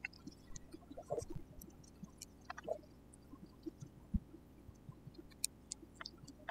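Faint scattered clicks and light handling noises as new rubber O-rings are fitted by hand onto a hydraulic disc brake caliper's banjo retention bolt, with a soft low knock about four seconds in.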